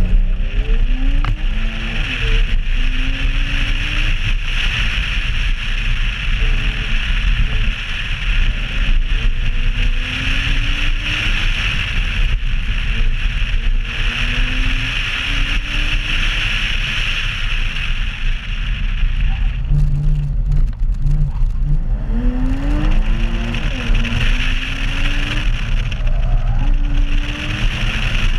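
2011 Porsche Boxster Spyder's flat-six engine revving up and falling back again and again through an autocross run, over a heavy low rumble and a steady high hiss. The hiss drops away briefly about twenty seconds in.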